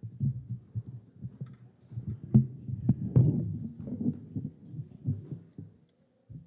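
Congregation sitting down: irregular low thumps and knocks of bodies, chairs and hymnals with shuffling, loudest around the middle and dying away near the end.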